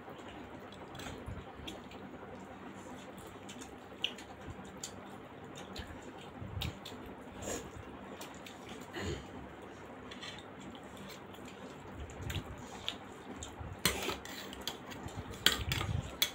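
Eating sounds of large steamed momos being torn open by hand and chewed, with scattered soft clicks and a few light clinks of spoons against steel plates and bowls, busier and louder near the end.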